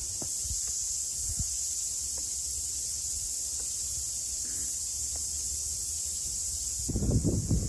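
A steady high chirring of insects. Near the end, gusts of wind buffet the microphone with a rumble.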